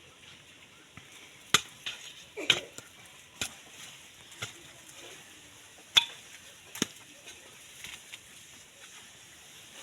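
About six sharp knocks and scrapes, spaced irregularly over several seconds, from hands and tools working soil and potatoes during the harvest.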